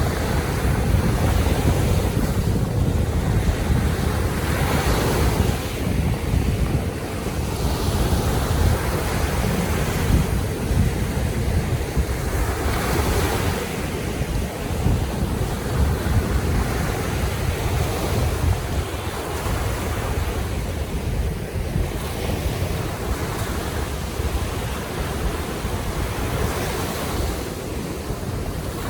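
Baltic Sea waves washing onto the shore, the hiss of each wave swelling and fading every few seconds, over a steady low rumble of wind on the microphone.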